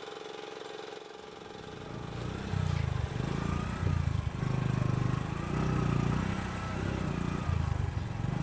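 A faint steady hum, then from about two seconds in a motor vehicle engine running with an uneven low rumble.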